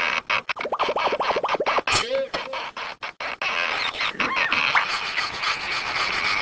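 Cartoon sound effects: a dense scratchy, scraping noise broken by many short gaps, with short squeaky vocal sounds rising and falling in pitch over it.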